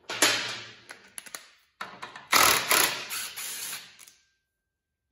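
Cordless DeWalt driver spinning bolts out of the go-kart's sprocket and clutch mount, in three bursts with a rapid mechanical rattle; the last burst is the longest.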